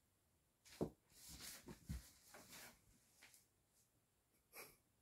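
Faint knock, then a few seconds of rustling and scuffing with a couple of thumps, as a kitten pounces on and shoves a mesh pop-up laundry hamper across a wooden floor. A short breathy puff follows near the end.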